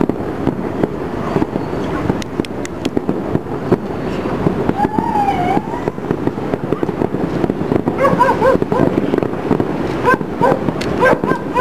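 Fireworks and firecrackers popping and crackling in a dense, irregular barrage. Short pitched calls join in from about eight seconds in.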